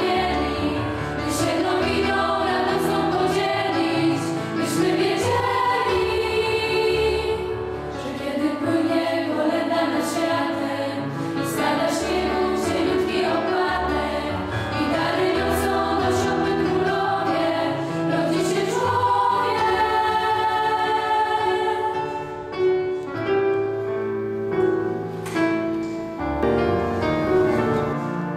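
Girls' vocal ensemble singing a Polish Christmas carol (kolęda) together.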